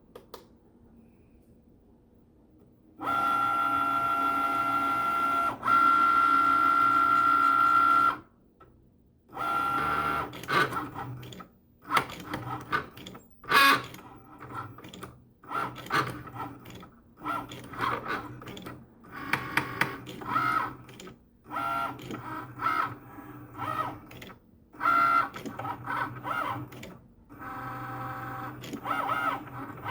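Cricut Maker cutting machine at work. Its motors give a steady whine for about five seconds, then move the carriage and mat in short stop-start bursts, with sharp clicks here and there. These are the loud clicking noises that come with the machine not cutting or writing properly and its carriage sitting off centre.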